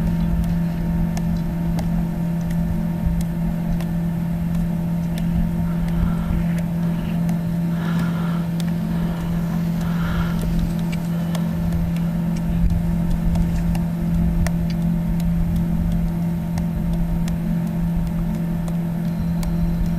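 Steady low mechanical hum, like a motor running at constant speed, over a rough low rumble of wind on the microphone.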